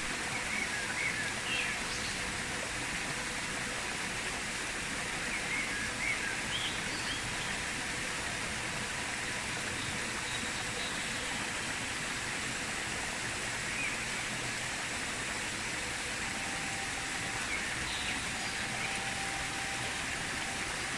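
Shallow rocky stream running: a steady rush of flowing water, with brief high bird chirps now and then.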